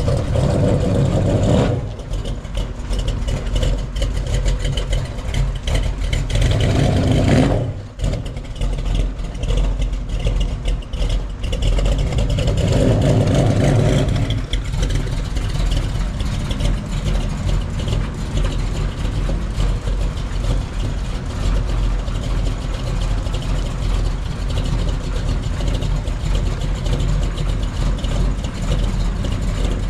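Vehicle engine idling steadily, growing briefly louder three times in the first half.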